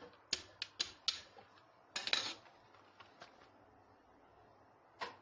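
Wooden handled rolling pin clicking and knocking against a floured glass tray as lavash dough is rolled out. There are several sharp clicks, a louder clatter about two seconds in, a few faint ticks, and one more knock near the end.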